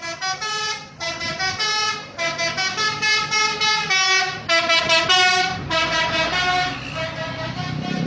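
Basuri telolet multi-tone bus horn playing a quick tune of short notes that step up and down in pitch.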